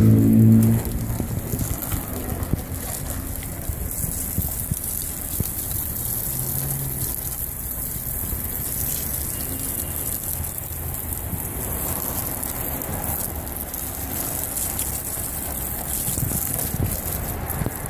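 Water from a garden hose spraying onto a car's painted bumper and body and splashing off it, a steady hiss. A loud pitched hum cuts off about a second in.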